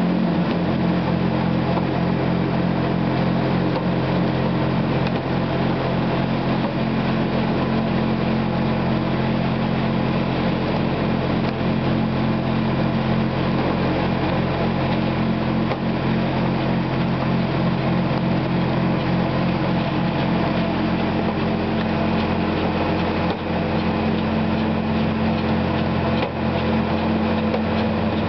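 Sludge-dewatering machinery, the centrifuge discharge and the BORNEMANN pump feeding on dewatered sludge, running steadily with a constant low hum and several held tones.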